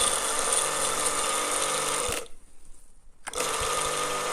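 Karcher K 5.20 pressure washer's electric motor and pump starting and running with a steady hum. About two seconds in it cuts off, and about a second later it starts again. With a new start capacitor in place of the dead one, the motor now starts instead of only humming.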